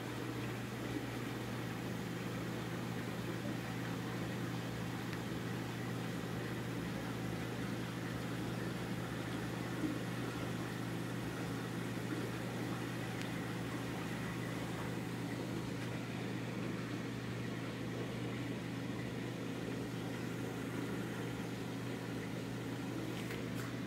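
Reef aquarium pumps running: a steady low hum with an even rush of water noise.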